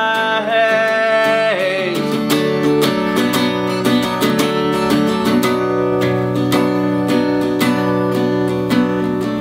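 Tanglewood acoustic guitar strummed in steady chords. A man's held sung note rings over it at the start and ends about two seconds in, leaving the guitar alone.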